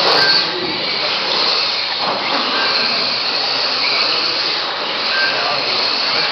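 Several electric radio-controlled mini racing cars running together, a steady high-pitched rush of motor whine and tyre noise, with short whining tones rising out of it now and then as cars pass.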